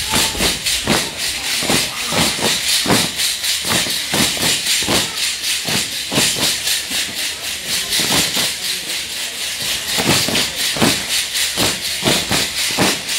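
Sonajas, the dancers' wooden rattles fitted with metal jingles, shaken together by a troupe of sonajero dancers in a steady, even rhythm, each stroke a sharp metallic jangle.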